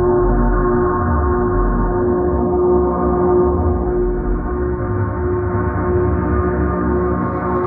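Ambient drone sound effect: a dense, steady chord of held tones with a slowly swelling low rumble underneath, dark and muffled with no high end.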